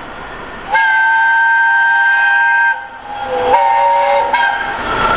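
Steam whistle of LNER A1 Pacific 60163 Tornado: one long, steady blast of about two seconds, then a second, shorter blast a moment later. Near the end the rising rush of the approaching locomotive and train closes in.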